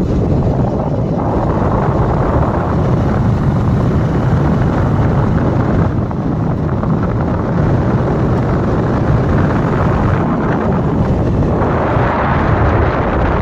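Steady, loud wind rumbling and buffeting on the microphone, heaviest in the low end, with no other distinct sound.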